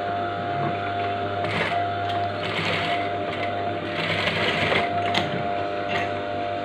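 Industrial single-needle sewing machine stitching through layered trouser fabric in three short runs, the last about four seconds in and the loudest.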